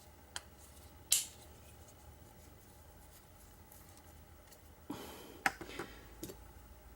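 Small metal clicks from hand tools working on a disassembled Medeco lock cylinder: two clicks in the first second or so, then about a second of scraping and clicking near the end.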